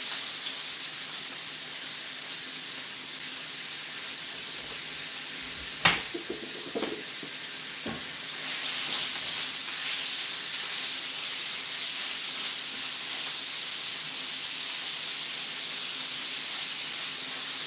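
Thin-sliced steak sizzling steadily on a hot electric Blackstone griddle. A sharp click about six seconds in and two lighter knocks just after stand out over the sizzle.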